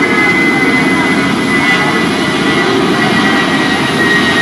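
Jet airliner's engines, a loud steady rush with a thin high whine that slowly falls in pitch.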